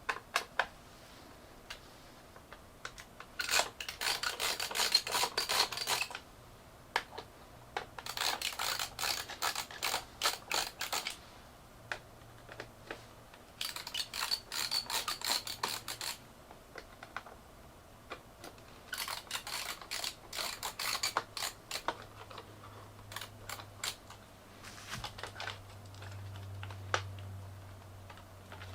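Rapid clicking and tapping in four bursts of two to three seconds each, with scattered single clicks between them; a faint low hum comes in near the end.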